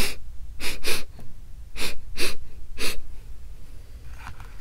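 A person sniffing sharply through the nose six times in about three seconds, some of the sniffs in quick pairs, acting out an animal sniffing at something.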